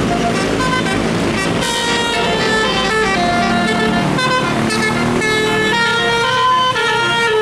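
Bus telolet musical air horn of the Basuri type playing a tune: a run of short, loud horn notes stepping from pitch to pitch several times a second, over the low rumble of the bus.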